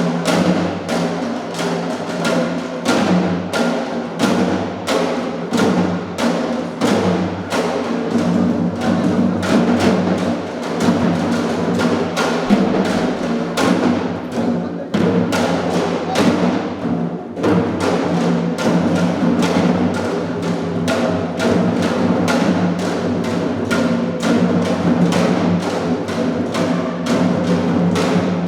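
Ensemble music with a steady drumbeat, about two strokes a second, over sustained pitched instruments.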